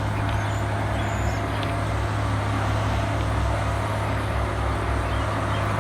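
Railway track maintenance machinery running steadily: a constant low mechanical hum with a noisy wash over it, the annoying noise from work on the line.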